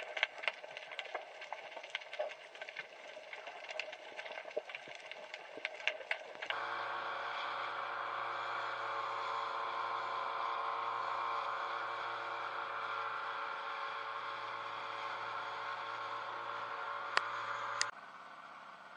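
Underwater crackle of scattered clicks, then a sudden change about six seconds in to a small boat's outboard motor running steadily, heard from aboard with water rushing past the hull. Two sharp clicks near the end, after which the motor sounds quieter.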